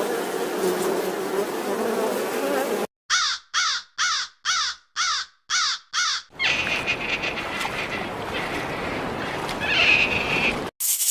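A bird giving seven short, harsh calls in quick succession, about two a second, set between stretches of steady noise; each section is cut off abruptly, as in spliced sound clips.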